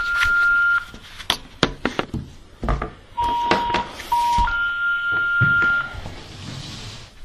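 Electronic telephone beeps: a steady high beep that stops about a second in, a few clicks, two short lower beeps around three and four seconds in, then another long high beep.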